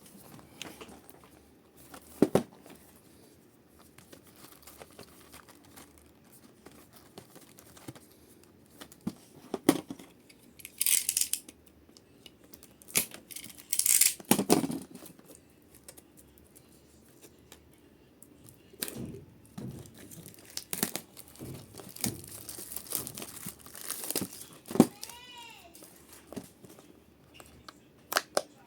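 Pokémon card booster packaging being opened by hand: plastic wrap and foil packs crinkling and tearing, with a couple of longer rips in the middle and occasional sharp taps. A brief squeak comes near the end.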